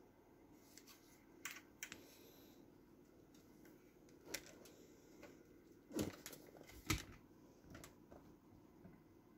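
A few scattered faint clicks and knocks from the metal casing of a Mercedes-Benz car stereo head unit being handled and turned over in the hand, over a faint low hum. The two loudest knocks come about six and seven seconds in.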